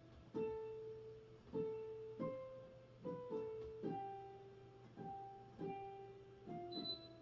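Piano played softly and slowly, single notes one at a time, each struck and left to ring out and fade before the next.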